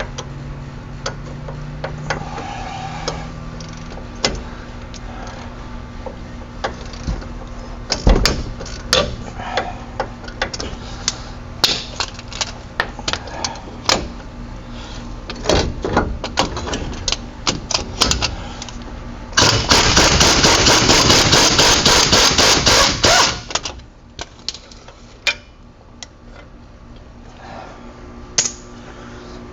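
Metal tool knocks and clinks from work on a truck's front wheel hub, with scattered hammer taps, then a loud rattling run of an impact wrench for about four seconds, starting some twenty seconds in.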